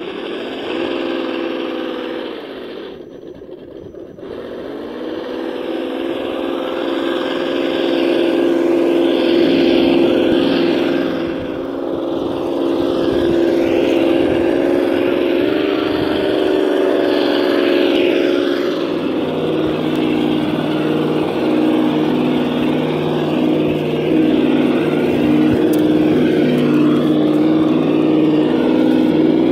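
Radio-controlled scale crawler truck driving: a steady engine-like drone with a higher whine above it that rises and falls with the throttle, and a few short knocks.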